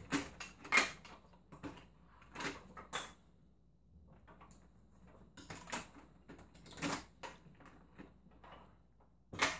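Plastic LEGO Duplo train pieces and figures being handled and set down: scattered light clicks and knocks, with a quiet gap of about two seconds in the middle.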